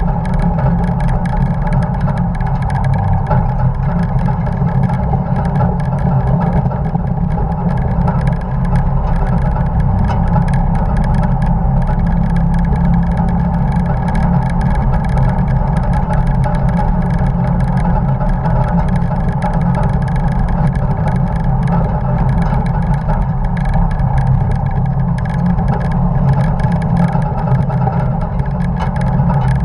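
Onboard sound of a 1950 Dodge pickup race truck's engine running steadily at track speed, mixed with wind and road noise.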